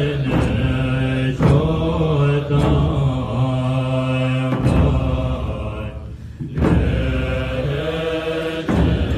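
Buddhist monks chanting a ritual liturgy together in low, sustained voices, accompanied by large handheld frame drums struck about every one to two seconds. The chant breaks off briefly a little past halfway, then resumes.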